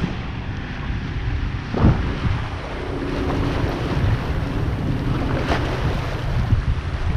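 Wind buffeting the microphone in gusts over water washing against jetty rocks, with the faint steady hum of a motorboat in the channel through the middle of the stretch.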